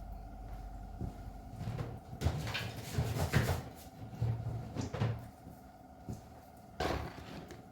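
Small diecast car parts and bits of plastic being gathered up and set down on a work surface: a string of light, irregular knocks and rustles.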